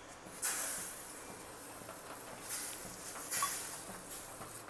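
Water sizzling on a hot griddle (tawa) as it is dabbed by hand over a bhakri flatbread cooking on it, hissing in spurts: about half a second in, then again around two and a half and three and a half seconds.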